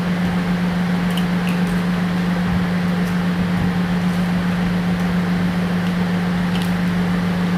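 Steady mechanical hum with one low, constant tone over an even hiss, unchanging throughout.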